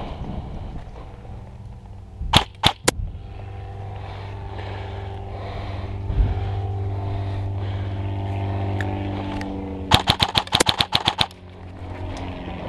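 Airsoft electric rifle (Umbrella Armory LVOA-S) firing. A quick string of about four shots comes a couple of seconds in, and a rapid burst of about a dozen shots comes near the end. A steady low hum runs between the two.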